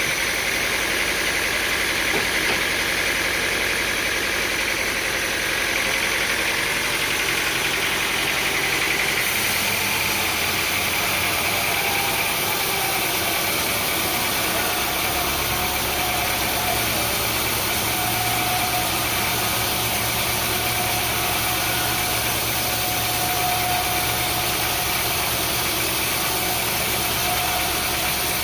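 Sawmill machinery running steadily, a continuous mechanical drone and noise whose low hum shifts pitch partway through.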